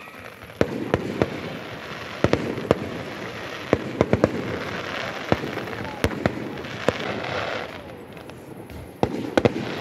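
Fireworks display: an irregular string of sharp bangs and pops, a dozen or so in all, over a steady hiss of launching and burning shells, easing off for a moment near the end before another quick cluster of bangs.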